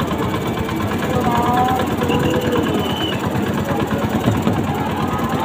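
A boat's engine running close by with a rapid chugging, mixed with a large crowd shouting and a few voices calling out above it.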